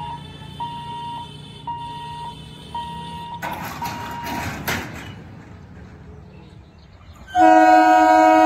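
Level-crossing warning hooter beeping on one steady pitch, about one beep a second, while the barrier booms lower, followed by a short burst of noise. About seven seconds in, an electric multiple-unit train's horn sounds loud and sustained, several pitches at once.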